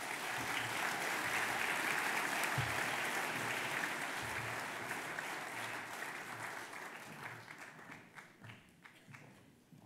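Audience applauding, loudest in the first few seconds and dying away toward the end.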